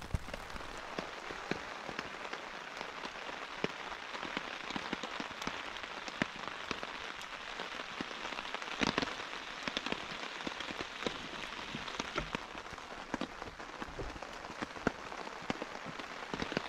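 Rain falling on a tent, heard from inside: a steady hiss with many separate drops ticking on the fabric, and one louder drop about nine seconds in.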